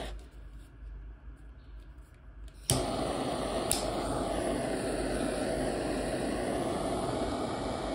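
Gas torch lit with a sharp igniter click about a third of the way in. Its flame then burns with a steady rushing hiss while it heats a joint for silver soldering, with one more click a second after lighting.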